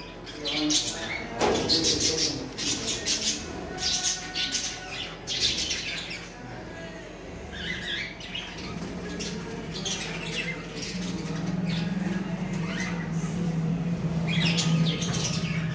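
Caged tumbler pigeons flapping their wings in short, sudden bursts, mostly in the first six seconds, with bird calls. A low steady hum comes in after about eleven seconds.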